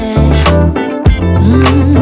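Background music: a song with a steady beat, bass notes and a wavering melody line.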